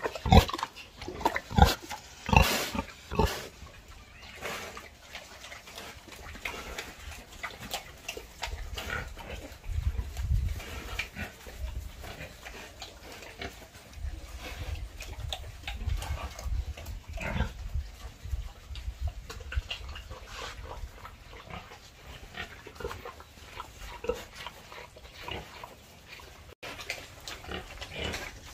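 Domestic pigs grunting and sniffing, loudest in a run of close, short sounds in the first few seconds, then quieter and scattered over a low rumble.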